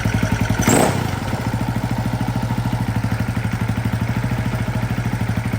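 KTM EXC enduro engine running at a steady idle on its first start after a rebuild, with a new carburetor, firing in an even, rapid beat. A short burst of noise comes about a second in.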